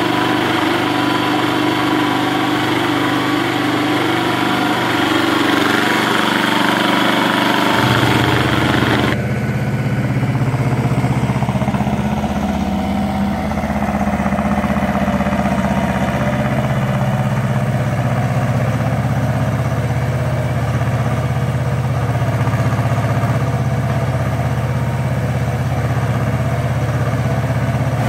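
Farm tractor's diesel engine running steadily at idle. About nine seconds in, the sound shifts to a deeper, steadier engine note.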